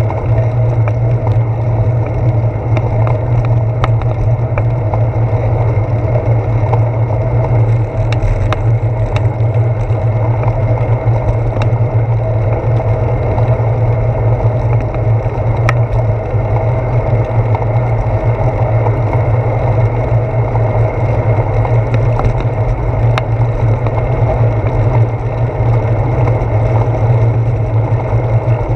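Steady rumble of bicycle tyres rolling on asphalt, with wind and vibration, picked up through a handlebar-mounted GoPro action camera. A few faint ticks are scattered through it.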